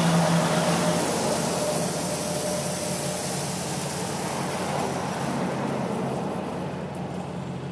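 A steady engine hum under an even rushing hiss; the hiss thins about five and a half seconds in while the hum goes on.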